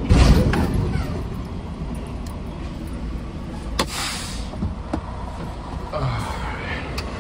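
Semi truck's diesel engine running, heard from the cab. Right at the start there is a loud, heavy thud that dies away over about a second: the tractor striking the trailer hard as it backs under it to couple. A single sharp click comes about four seconds in.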